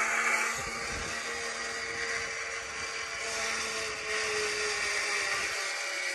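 Pulley wheels of a river-crossing cable car running along the steel cable, giving a mechanical whine of several steady tones that drift slowly in pitch, over the rush of a fast river.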